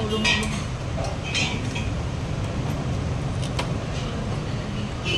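A few light metallic clicks and clinks as parts are handled on an automatic transmission's exposed valve body, over a steady low rumble.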